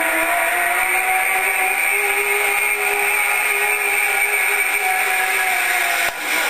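Zipline trolley pulleys running down the cable as a rider descends: a whine that rises in pitch as the trolley picks up speed, holds steady, then dips slightly as it slows toward the end of the line, over a steady rushing hiss. It cuts off abruptly near the end.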